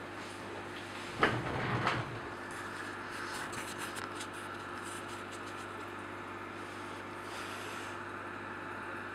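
Steady low hum and hiss of a running aquarium, with a sudden loud knock about a second in followed by about a second of low rumbling, then faint scattered clicks.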